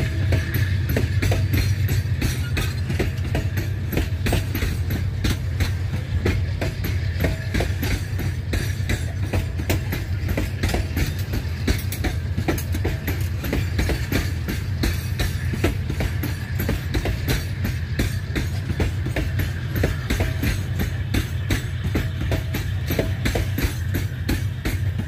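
Freight train of loaded hopper wagons rolling past close by: a steady low rumble with a dense, continuous clatter and clicking of steel wheels on the rails.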